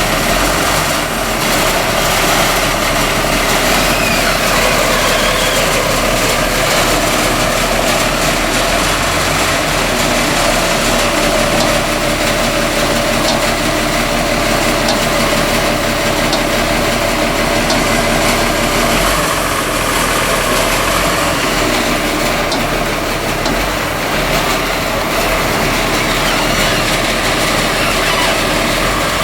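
Heavy sawmill machinery running steadily for a large log: a constant engine drone with a steady hum and a dense hiss, holding at the same level throughout.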